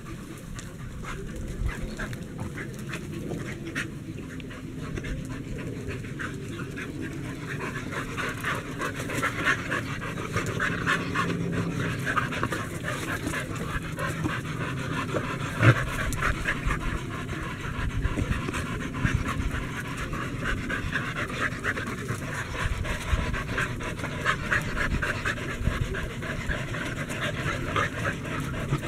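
Dog panting fast and hard, heavier from about a third of the way in, with one short sharp sound about halfway through.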